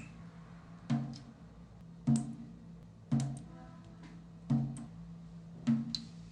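Water dripping in slow single drops, five in all, roughly one every 1.2 seconds, each a short pitched plink with a brief high ping.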